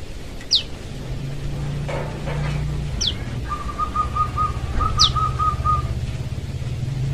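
Young prenjak lumut giving short, sharp calls that slide downward in pitch, three times, about two to two and a half seconds apart: a fledgling calling for its parent. In the middle comes a rapid run of about ten lower whistled notes, over a low steady hum.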